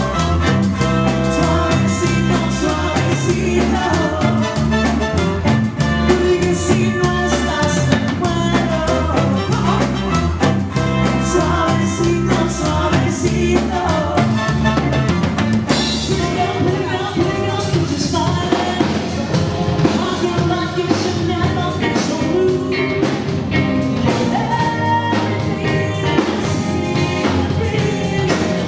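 Band music with a singing voice over a drum kit and a steady bass line; the rhythm and arrangement change about halfway through.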